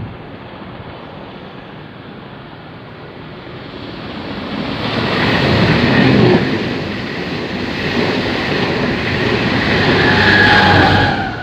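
Railway train passing at speed on the main line. The rail and wheel noise swells from about four seconds in, peaks twice with a faint whine, then drops away sharply at the very end.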